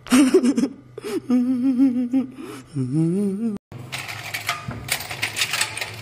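A man's voice in a wavering, sing-song pitch, like a teasing laugh, cuts off suddenly about three and a half seconds in. Then loose metal keys clink and rattle as a hand rummages through a metal tin full of them.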